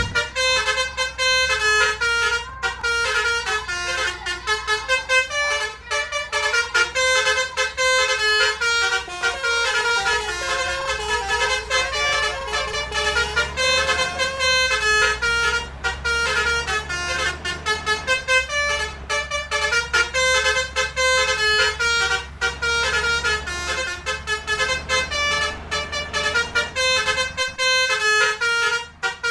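Indonesian 'telolet' bus horn, a set of multi-tone air horns, playing a continuous quick-changing melody over the steady low rumble of the bus engine, with a brief break near the end.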